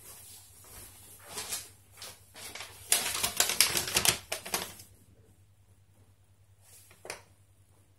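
Rustling and crackling of packaging being handled, in a few short bursts and a dense stretch about three to four and a half seconds in, then mostly quiet apart from one brief rustle near the end.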